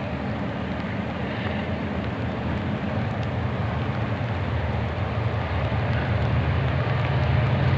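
Conrail diesel locomotives heading a freight train approach, their engines making a steady low rumble that grows gradually louder.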